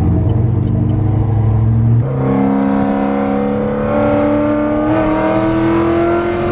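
Cammed Chevy SS's 6.2-litre V8 with a stage 3 camshaft running at low revs for about two seconds, then accelerating with the revs climbing steadily.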